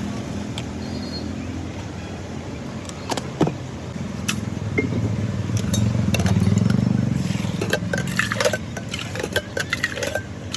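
A motor running with a steady low hum that grows louder about six to seven seconds in, with sharp clicks and knocks through the second half.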